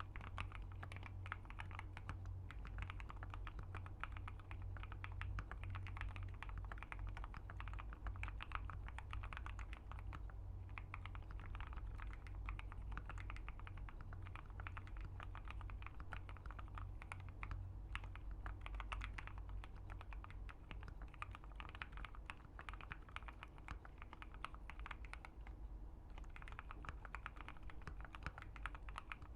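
Continuous typing on a Keychron Q1 mechanical keyboard with an FR4 plate and C3 Fierce Girls switches: a steady, fast stream of key clacks.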